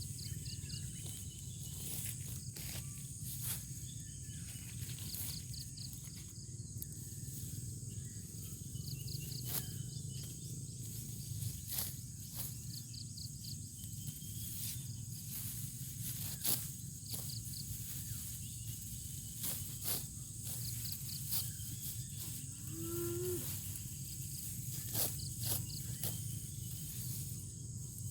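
Field ambience: a steady high insect drone with short repeating chirps, scattered sharp clicks, and one brief low, rising animal call about 23 seconds in.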